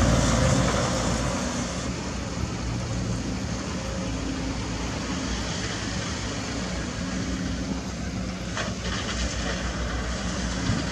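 Caterpillar 320D2 GC excavator's diesel engine running steadily with a low hum. It is louder at first and eases off over the first couple of seconds.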